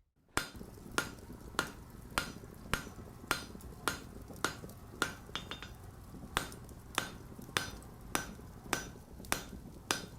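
Hand hammer striking copper in a steady rhythm, about one blow every 0.6 s, each blow ringing briefly, with a short pause a little past the middle.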